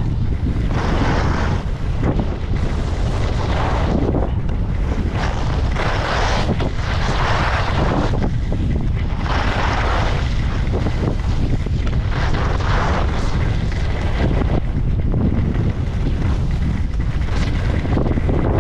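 Wind buffeting the microphone of a downhill skier, with the hiss of ski edges scraping over packed, chopped-up snow surging on each turn, every two to three seconds.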